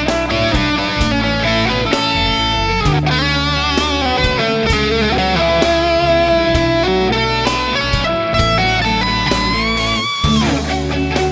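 Knaggs Kenai electric guitar with Seymour Duncan Seth Lover humbuckers, played through a Mesa/Boogie amp: a busy lead run of picked notes with string bends and vibrato, ending on a held, bent note with vibrato near the end.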